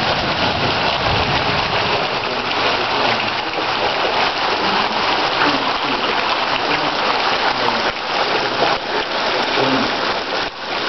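Heavy rain pouring down onto a flooded street, a steady loud hiss.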